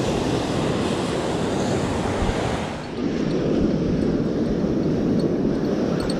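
Ocean surf washing on a beach, with wind buffeting the microphone. The rush dips briefly about three seconds in and then carries on duller.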